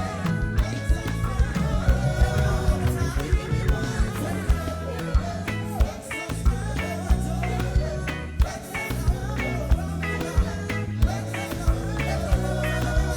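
Band playing a reggae-style gospel song, with bass guitar, drums and singing.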